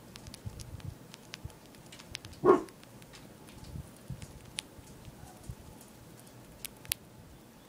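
Roborovski dwarf hamster nibbling a pumpkin seed: faint, irregular crunching clicks. One brief, much louder sound about two and a half seconds in.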